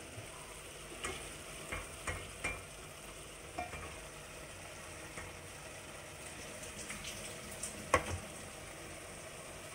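A wooden spoon stirring omena stew (small dried fish in tomato sauce) in a pan over a steady sizzle, with scattered knocks and scrapes of the spoon against the pan and one louder knock about eight seconds in.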